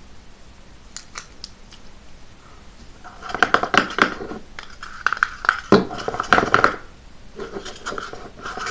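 Slime being squished and worked by hand: crackling, popping squelches that start about three seconds in, come in two bouts, and are loud up close.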